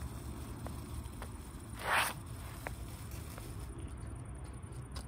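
Small youth-category firework burning out on paving: a short fizzing burst about two seconds in and a few faint crackles, over a steady low rumble.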